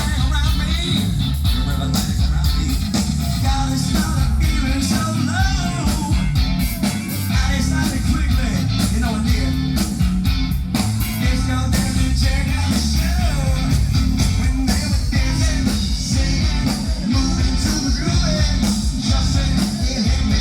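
Live rock band playing loudly: drums, bass and electric guitar, with a voice singing over them.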